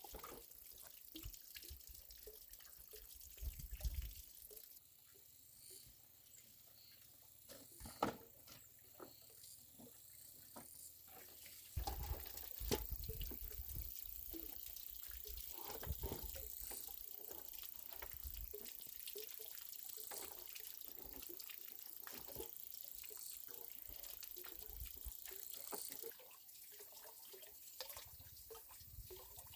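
Water running, trickling and dripping, with scattered small knocks and splashes. The flow gets louder and steadier for a long stretch in the middle.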